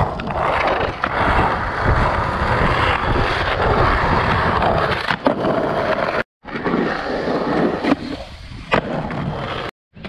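Skateboard wheels rolling over a concrete skate park surface: a steady, rough rolling noise with a few sharp clacks of the board. The sound drops out completely for a moment about six seconds in and again near the end.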